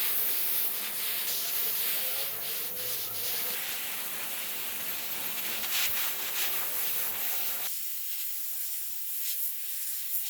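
Hand sanding on a diecast model car part: sandpaper rubbing back and forth in a continuous scratchy noise. About three-quarters of the way through it gives way to a thinner hiss.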